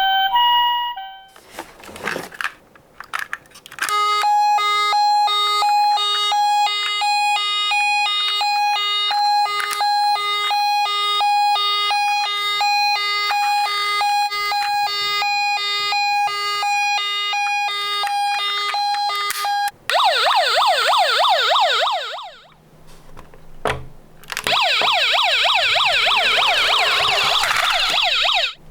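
Emergency-vehicle siren sounds: a two-tone hi-lo siren alternating steadily between two notes, then a fast rising-and-falling yelp siren in two stretches with a short break between them.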